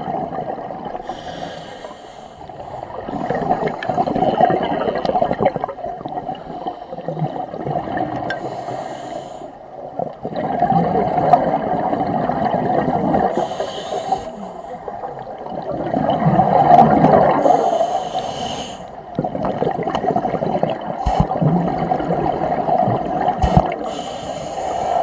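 Scuba diver breathing through a regulator underwater: a hiss on each inhale and a rush of bubbles on each exhale, repeating in slow cycles of several seconds.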